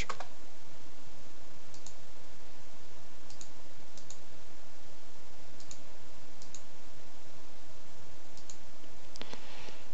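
Computer mouse clicking a handful of times, short faint clicks spaced a second or so apart, over a steady hiss.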